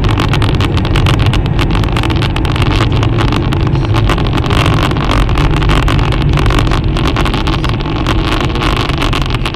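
Steady, loud rumble of a car travelling at highway speed: engine and tyre noise picked up by a dashcam microphone inside the cabin, with a dense crackle over it.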